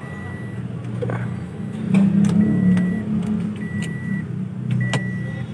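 A car's electronic warning chime beeping: a short, high, steady beep repeating about every second, four times, over a steady low rumble.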